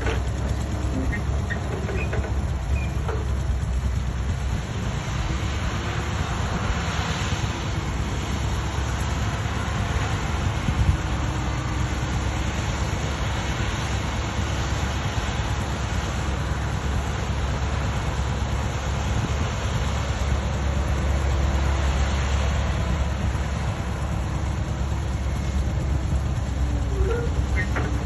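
Steady low rumble and noise of a heavy vehicle running, unchanging throughout.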